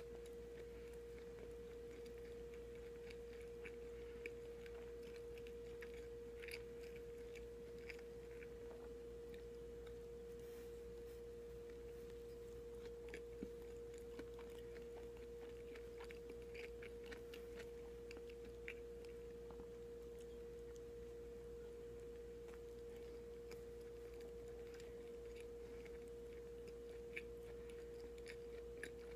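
Faint chewing of a soft white-bread sandwich, with small mouth clicks scattered throughout, over a steady hum at one pitch.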